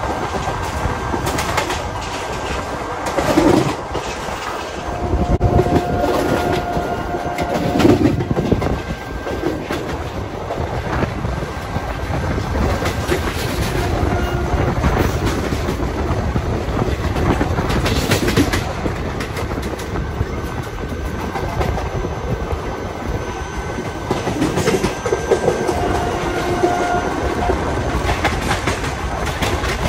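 Express train running, heard from the open doorway of a passenger coach: a steady rumble with the wheels clattering over rail joints, clickety-clack.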